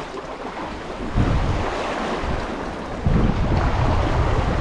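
Wind buffeting the microphone in gusts over the wash of choppy sea water, the low rumble growing heavier about three seconds in.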